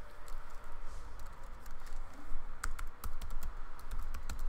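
Typing on a laptop keyboard: irregular key clicks, coming in quick runs around the middle and again near the end.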